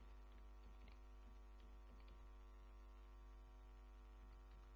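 Near silence: a low, steady electrical mains hum on the recording, with a few faint clicks.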